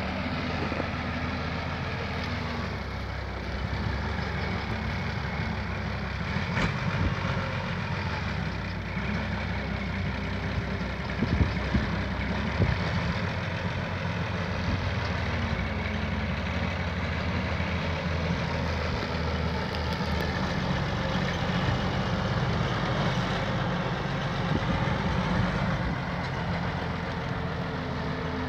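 Valtra farm tractor's diesel engine running steadily, with a couple of brief knocks near the middle.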